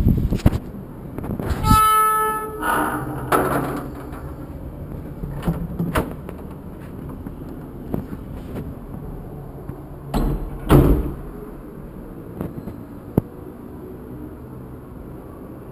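Steel security grille gate swung open, its hinge giving a short high squeal about two seconds in. Clicks and knocks follow as the flat's door is unlocked and opened, with a louder bump about eleven seconds in.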